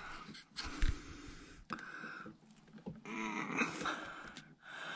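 A man breathing hard in a few long breaths through his nose while pressing on a master cylinder's piston, with one light knock about a second in.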